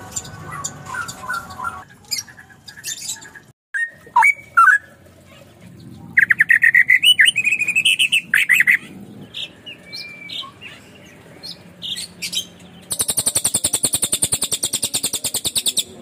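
Caged songbirds chirping and singing across several short clips, with loud, rapid whistled phrases in the middle and a fast, high, even trill over the last three seconds.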